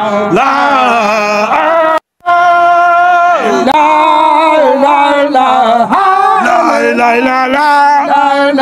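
A kourel of Baye Fall men chanting a Sufi zikr without instruments, long held notes that step and slide between pitches. The sound cuts out completely for a moment about two seconds in.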